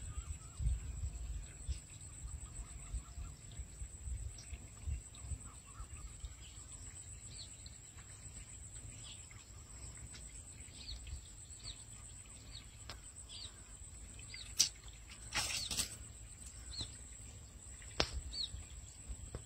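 Faint open-air swamp ambience: small birds chirping over and over against a steady high whine and a low rumble. About fifteen seconds in comes a short rustling burst, and a sharp knock near the end, as a snakehead is hooked and jerked out of a hole in the swamp weed.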